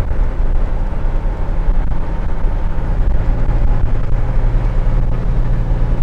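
Steady engine drone and road noise of a 2000 International Blue Bird school bus heard inside the cab while cruising in gear at about 2,500 rpm and 40 mph.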